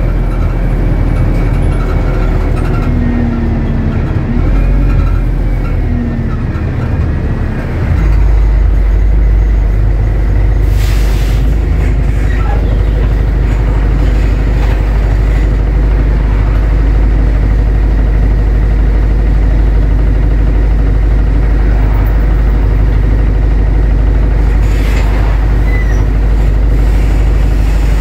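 Bus engine heard from inside the passenger cabin, a steady deep drone that grows louder and fuller about eight seconds in and then holds. Faint squeaks come in the first few seconds, and a short hiss, like an air brake, about eleven seconds in.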